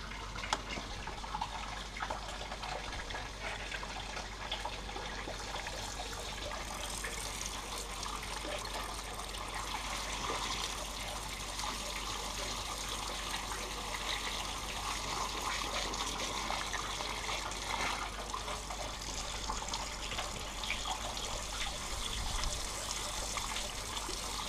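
Water from a garden hose spraying and splashing onto a painted steel panel, rinsing off caustic soda paint stripper, with water trickling down. The spray gets hissier about six or seven seconds in.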